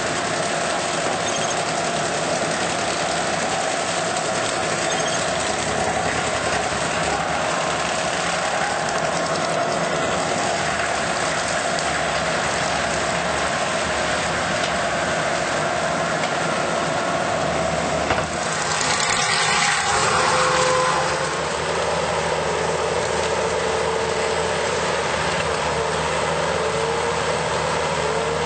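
Skid steer running with a forestry mulcher head working: a loud, steady machine noise. About two-thirds of the way in it briefly gets louder and rougher, then settles again at a slightly different pitch.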